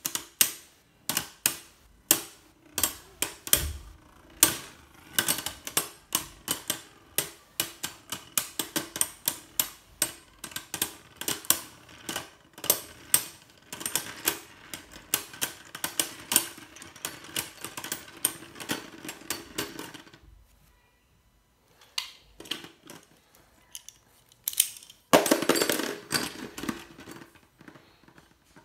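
Two Beyblade Burst spinning tops clashing in a plastic stadium: rapid, irregular sharp clacks over a steady spinning whir for about twenty seconds. Then the clashes stop, leaving a few light clicks and, about twenty-five seconds in, a loud rattle lasting about a second and a half.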